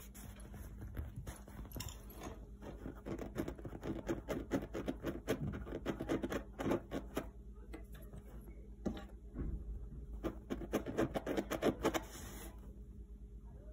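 Fingertips scratching and tapping on a worn leather couch arm in quick, irregular strokes, stopping suddenly about a second before the end.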